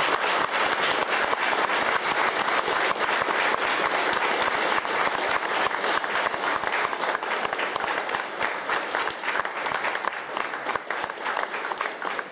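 Audience applauding: many people clapping steadily, thinning slightly near the end.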